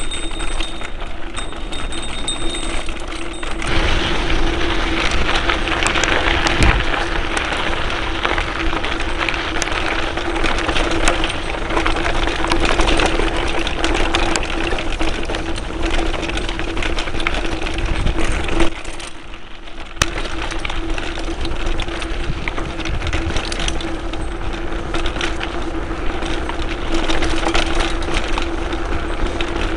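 Giant Reign X1 full-suspension mountain bike ridden over a rough dirt and gravel trail, heard from the handlebars: a continuous clatter of tyres, chain and frame over loose stones, with wind noise and a steady hum under it. It grows louder a few seconds in and eases briefly about two-thirds of the way through.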